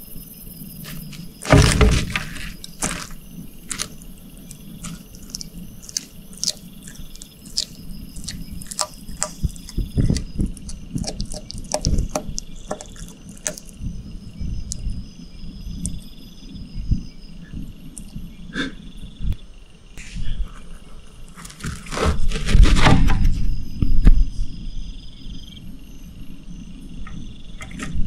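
Insects chirping steadily in the background, with scattered clicks and rustles and a louder burst of scuffling noise near the start and again about three quarters of the way through.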